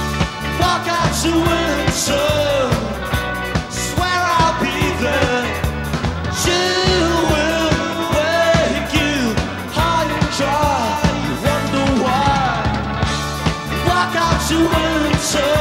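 Live rock band playing: a male lead singer over a strummed acoustic guitar, electric guitar and drums.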